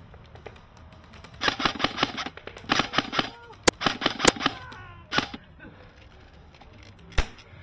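Airsoft rifle fire: several short rapid bursts of sharp snapping shots from about a second and a half to five seconds in, then a single shot near the end.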